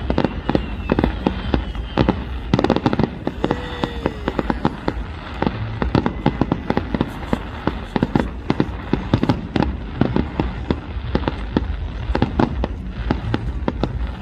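Fireworks display: aerial shells bursting in a rapid, continuous barrage of bangs, several a second, with a steady low rumble underneath.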